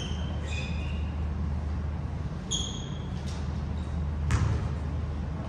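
Basketball shoes squeaking on the gym floor several times, short high squeaks, and a basketball bouncing once about four seconds in, over a steady low hum.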